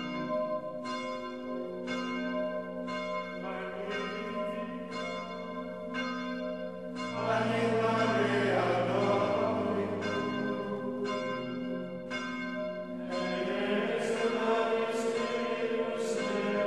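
Background music of ringing bells, struck in a steady pattern roughly twice a second over a held low drone. A choir swells in about seven seconds in, covering the bells for a few seconds, and swells again near the end.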